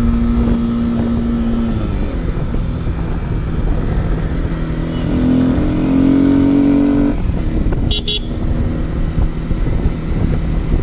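Sport motorcycle engine running while riding, fitted with an aftermarket air filter. The engine note holds steady, drops about two seconds in, then rises as the bike accelerates and cuts off sharply at about seven seconds. A short high double beep comes about eight seconds in.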